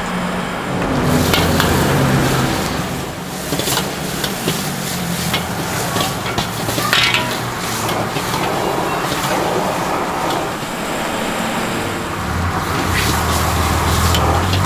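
Pad thai frying in a wok: a steady sizzle with a metal spatula repeatedly scraping and clanking against the pan. A low hum runs underneath and grows louder over the last couple of seconds.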